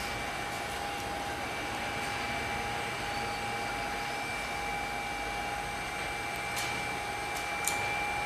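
Steady fan noise: an even hiss with a high, constant whine, and a few faint clicks near the end.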